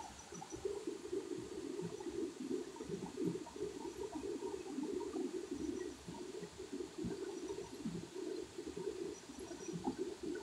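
Water running and gurgling steadily, with faint insects.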